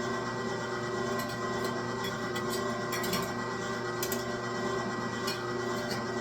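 LEM Big Bite electric meat grinder running steadily with a hum while grinding meat through its 4 mm plate, with scattered light clicks and clinks over it.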